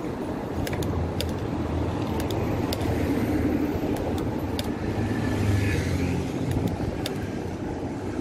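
City road traffic: motor vehicles running on the road, a steady low rumble with scattered sharp ticks.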